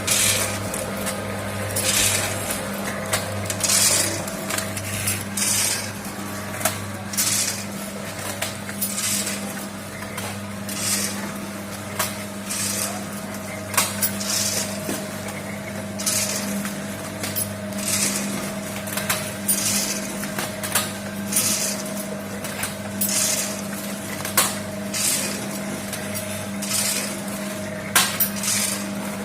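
Automatic vertical form-fill-seal packing machine bagging pilus snack. A steady motor hum runs underneath a regular cycle, with a short rushing burst about every 1.8 seconds and sharp clicks scattered through it.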